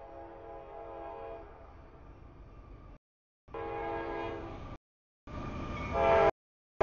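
A CSX freight locomotive's multi-chime air horn blows for the grade crossing as a stack train approaches, getting steadily louder and much louder near the end. The sound cuts out completely for a moment two or three times.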